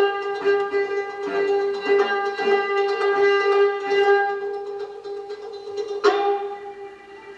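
Instrumental dance music: one long held tone with plucked-string notes picked over it, a sharp plucked note about six seconds in, then getting quieter.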